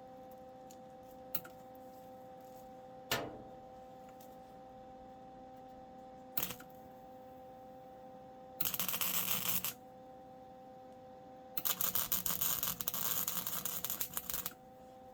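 Metalworking sounds under a steady hum: three sharp knocks, the middle one ringing briefly, then two bursts of crackling hiss, the second lasting about three seconds.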